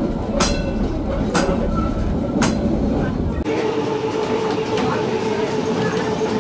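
Johnstown Traction 357 trolley car running along the track, heard from inside the cab: a heavy rumble with a sharp wheel click over a rail joint about once a second. About halfway through, the sound changes abruptly to a lighter rumble with a steady hum.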